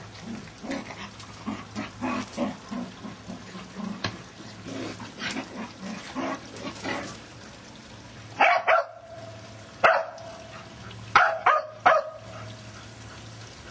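A shaggy sheepdog and her pup at play: a run of short low grumbling growls, then six sharp barks in the second half, two close together, one alone, then three in quick succession.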